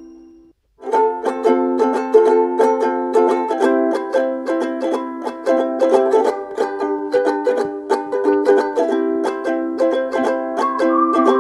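Background music: a quick, bright plucked-string tune picked note by note. It starts about a second in, after a short silence.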